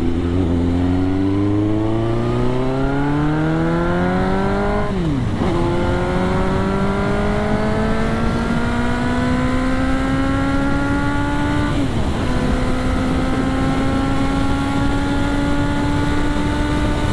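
Suzuki GSX-R motorcycle with an aftermarket sport exhaust accelerating hard. The engine note climbs, drops sharply at an upshift about five seconds in, climbs again more slowly, and drops at a second upshift about twelve seconds in, then rises only gently.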